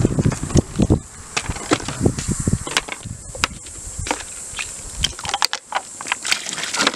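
Knocks, clatter and scraping as a wooden stirring stick and a paddle mixer are handled against the metal pot of an old deep fryer full of flour-and-water paste. The knocks are busiest in the first three seconds and then thin out to scattered ticks.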